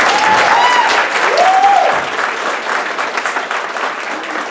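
Theatre audience applauding and cheering at the end of a song, with a few voices whooping in the first couple of seconds; the clapping thins out toward the end.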